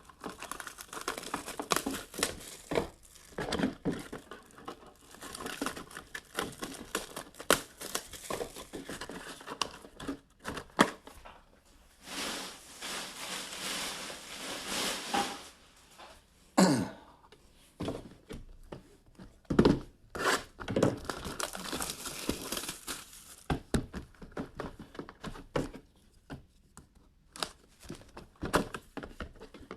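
Plastic shrink wrap being torn and peeled off small trading-card boxes, crinkling and crackling, with one longer tear about twelve seconds in. A couple of sharp knocks follow a few seconds later, as boxes are set down.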